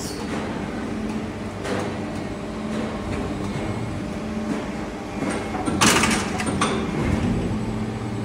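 Injection moulding machine running through a mould-trial cycle: steady hum of the machine's drive with the mould opening and closing, and a loud burst of noise about six seconds in.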